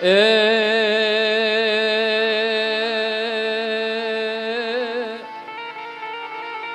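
A singer holds one long sung 'e' with vibrato, sliding up into it at the start and stopping about five seconds in, opening a line of a Gujarati devotional song to the goddess. Steady instrumental accompaniment runs underneath and carries on alone at the end.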